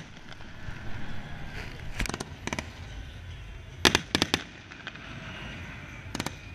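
Aerial firework shells bursting in sharp bangs, coming in clusters: a couple about two seconds in, a quick run of them about four seconds in, and more just before the end.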